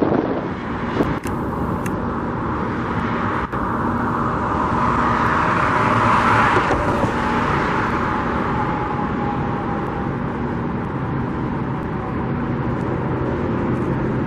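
Steady road traffic noise, with a vehicle passing by that is loudest about six seconds in.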